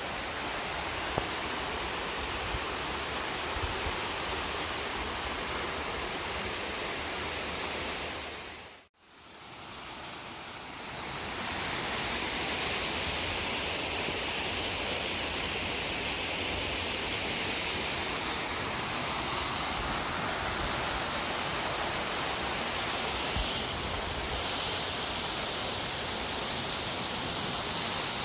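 Waterfall rushing as a steady, even roar of water. The sound fades out to silence for a moment about nine seconds in, then fades back in.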